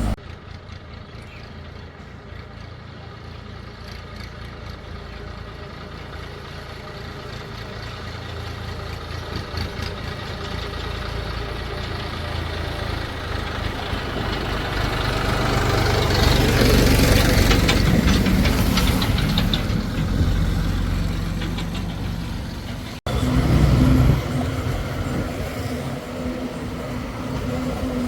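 Diesel engines of a backhoe loader and tractors working. The engine sound builds up to a loud peak and then eases off over several seconds. After a break near the end, a steady engine hum follows.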